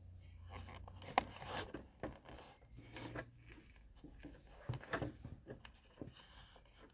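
Coins, quarters and dimes, being handled and slid around on a surface: light scattered clicks and rubbing, with a sharper click about a second in and a cluster of clicks around five seconds in.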